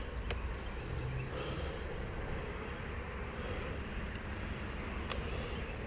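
Low, steady background noise with a few sharp, isolated clicks spread through it; no engine running.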